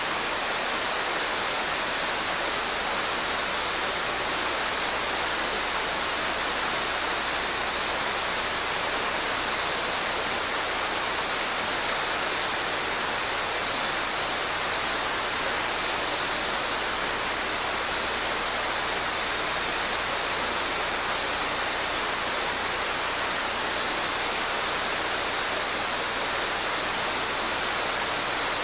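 Mountain stream water rushing steadily over rocks in a continuous, even rush.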